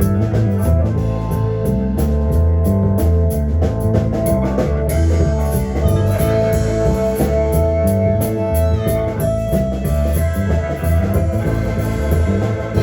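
Rock band playing live without singing, with guitar, drum kit, bass and organ; a held lead note sounds in the middle.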